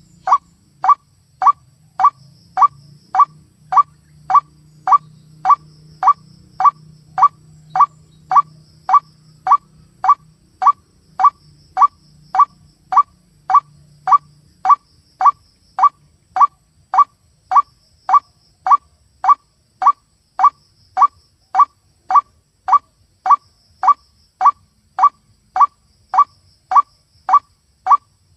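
White-breasted waterhen calls, a short 'kruak' note repeated evenly about twice a second in a steady loop.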